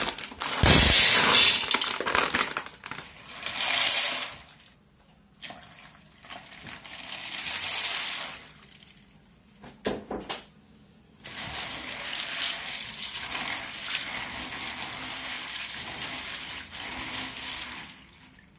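Dried chickpeas poured into an empty stainless steel bowl, rattling loudly on the metal in a few bursts during the first half. Then a steady rush of water filling the bowl over the chickpeas for several seconds.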